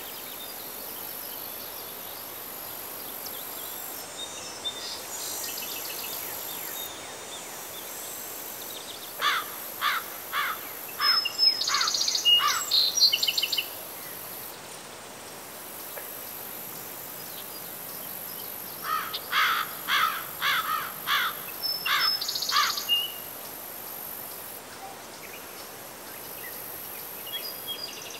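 Steady high-pitched chorus of insects in a field, with a songbird singing two runs of quick repeated notes, each lasting about four seconds, about nine seconds in and again about nineteen seconds in.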